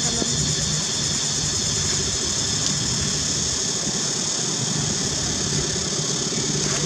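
Steady background drone: a low hum with an even high-pitched hiss above it, unchanging throughout and with no distinct events.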